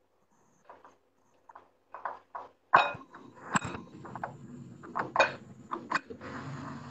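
Kitchen counter clatter: a run of sharp knocks and clinks as bowls and utensils are handled and set down, a few of them loud. Near the end a steady low noise sets in.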